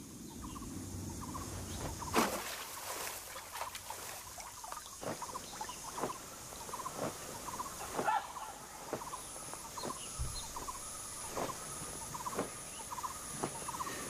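Marsh ambience of animal calls: scattered sharp chirps, clicks and short quick trills, the loudest about two seconds in, over a faint hiss. In the second half a thin high tone pulses on and off, a little faster than once a second.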